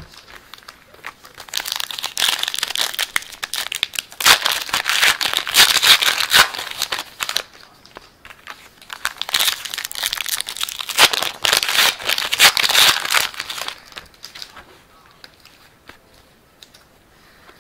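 Trading-card pack wrappers being crinkled and torn open by hand, in three spells of crackling, growing much quieter for the last few seconds.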